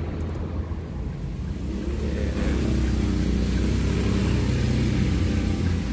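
Car engine and road noise heard from inside the cabin while driving, a steady low rumble that gets a little louder about two seconds in.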